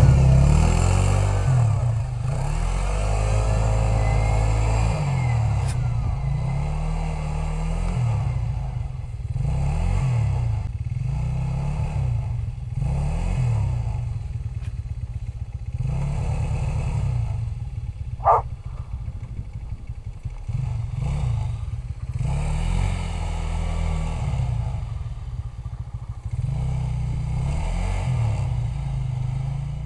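Bombardier Rally 200 ATV's small single-cylinder engine revving up and down over and over as it drives through snow. One short sharp sound stands out about eighteen seconds in.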